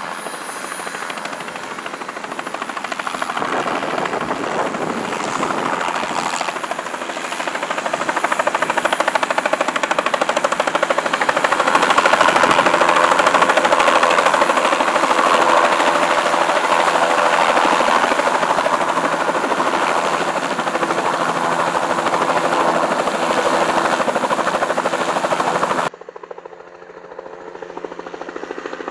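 Bell 206 LongRanger turbine helicopter flying close by, its rotor and engine making a steady, loud noise. The noise grows louder toward the middle, then drops suddenly near the end to a quieter, more distant sound with a steady hum.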